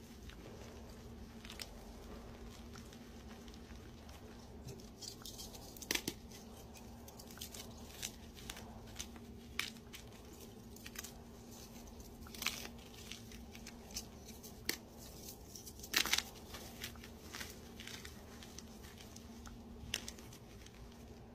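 Hands crushing soft dyed blocks into powder, making crisp, irregular crunches and crackles as the blocks break and crumble. Two crunches stand out louder than the rest.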